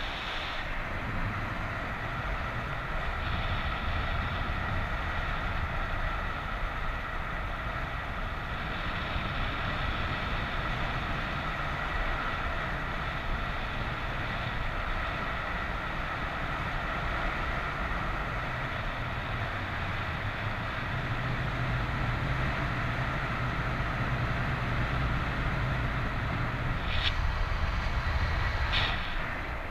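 Steady rush of wind over the microphone of a camera carried in flight under a paraglider in strong wind, with a low rumble. There are two short clicks near the end.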